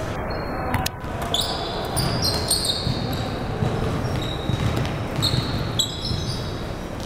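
Basketball game on a hardwood gym floor: sneakers squeaking many times from about a second in, with a basketball bouncing and footfalls in the reverberant gym.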